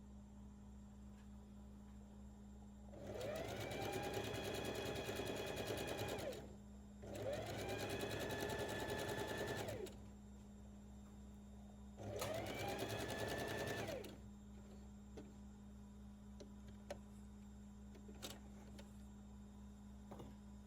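Home sewing machine stitching in three runs of about three, three and two seconds, each one speeding up as it starts and slowing as it stops. Faint clicks follow.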